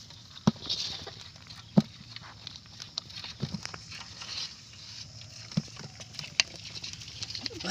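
Snail shells clicking and clattering against each other as a hand rummages through a basin of snails and small fish, with a few sharper knocks.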